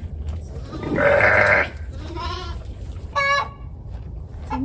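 A young lamb bleating while held up for banding at docking and castration: one loud, rough bleat about a second in, then two shorter, fainter calls.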